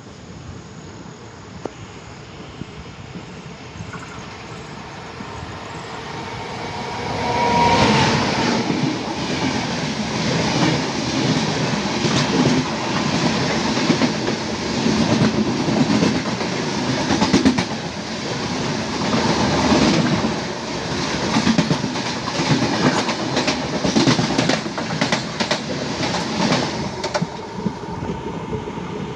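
The 16316 Kochuveli–Mysuru Express passes close by on the adjacent track, heard from the open doorway of another moving train. Its noise builds over the first several seconds, then its wheels clatter rhythmically over the rail joints with a heavy rush of air for about twenty seconds, and it eases off near the end as the last coaches go by.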